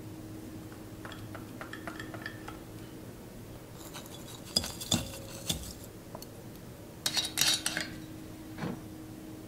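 Glass bowls and kitchen utensils clinking and being set down on a counter: scattered light taps, then a few sharp knocks, one of them ringing briefly, a quick cluster of clinks, and a softer knock near the end.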